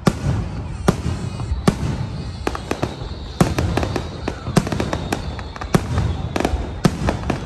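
Fireworks going off: many sharp bangs at irregular intervals, several a second at times, over a continuous low rumble, with a high whistle lasting about two seconds in the first half.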